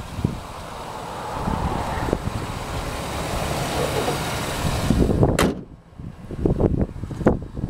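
Chevrolet 5.3 L Vortec V8 running with the hood up, then the hood slammed shut a little past five seconds in with a single bang; after it the engine noise is suddenly muffled.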